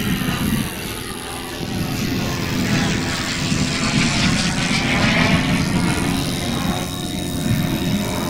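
Radio-controlled scale model T-33 jet flying by, its engine making a steady rushing whine that swells and falls away as it passes about halfway through.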